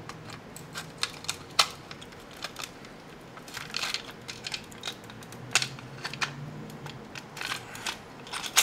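Plastic case of a Panasonic Ni-MH battery charger creaking and cracking as a claw hammer's claw pries its sealed seam apart, with irregular sharp snaps and clicks, a few of them louder.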